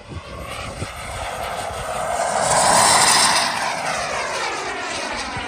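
Turbine of a large RC jet model (JetCat 180) whining as the jet makes a pass: it grows louder to a peak about three seconds in, then fades as it moves away.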